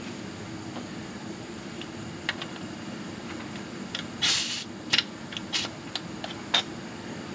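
A short, loud hiss of compressed air about four seconds in, followed by a few sharp clicks: an air line being coupled to a cylinder leak-down tester and the fittings snapping into place. A steady low hum continues underneath.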